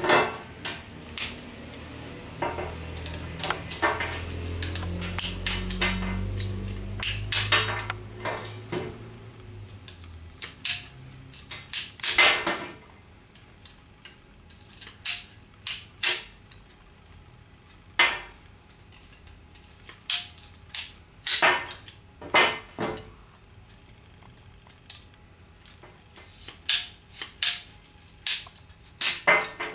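Ratchet pruning shears being worked: a long series of sharp, irregularly spaced metallic clicks and snaps, with a low rumble under them for roughly the first ten seconds.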